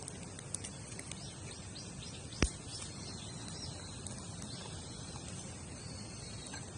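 Wood campfire crackling with scattered small ticks and one sharp, loud pop about two and a half seconds in, over faint high chirps of birds or insects.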